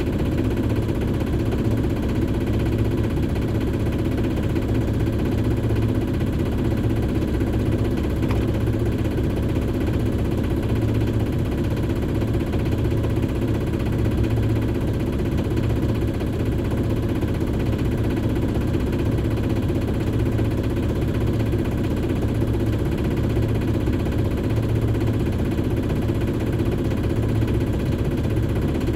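A Shipman 28 sailboat's engine running steadily while motoring, a constant low drone with a slight throb.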